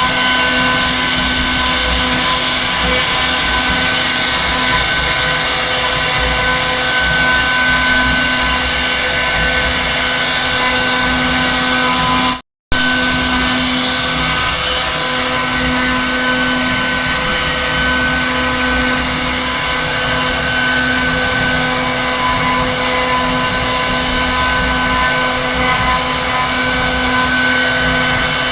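CNC router spindle running steadily as it carves a 3D design into a door panel, a constant machine whine over cutting noise. Roughly halfway through, the sound drops out for a split second.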